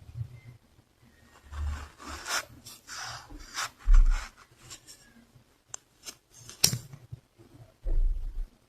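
Close-up scratching and rubbing on a surface: irregular rasping strokes, then a few sharp clicks, with dull low thumps now and then.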